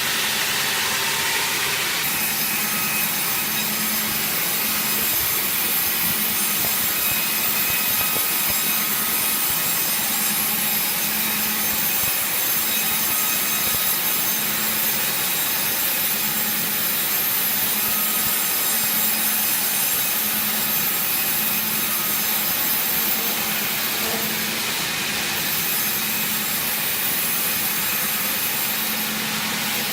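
Sawmill saw cutting through wood: a steady, loud rasping noise with a low hum that pulses about once a second, the cutting noise growing brighter about two seconds in.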